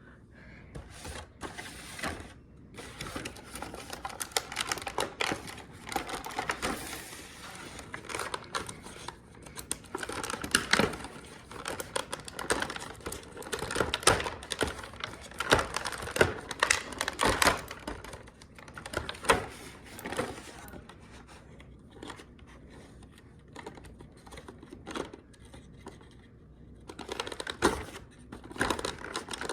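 Hands opening toy packaging: an irregular run of clicks, taps and plastic crinkling, busiest through the middle and quieter for a few seconds before picking up again near the end.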